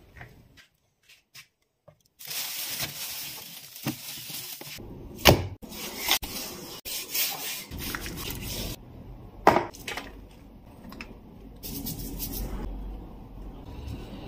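Kitchen prep sounds: a few light clicks of a fridge door, then a steady hiss like running water, then a knife cutting into a raw leg of lamb on a wooden chopping board, with sharp knocks of the blade on the wood, the loudest about five and nine seconds in.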